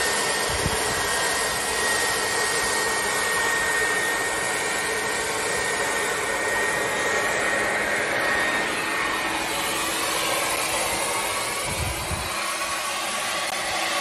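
Corded electric leaf blower running steadily, its nozzle held to an HVAC condenser coil to blow the rinse water out of the fins. A steady rush of air with a thin whine over it that fades out about two thirds of the way through.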